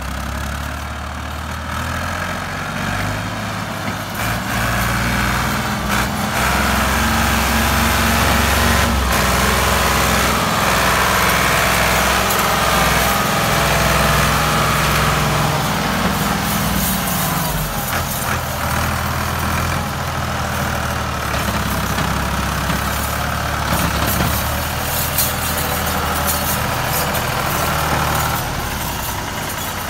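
Ford 4600 tractor's three-cylinder diesel engine working hard, hauling a heavily loaded sugarcane trolley. The engine builds over the first few seconds and holds a steady labouring note, then its pitch shifts around halfway and the sound eases off near the end.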